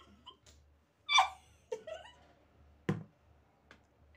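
A woman's brief falling cry about a second in, then short breathy vocal sounds, and a single sharp knock about three seconds in.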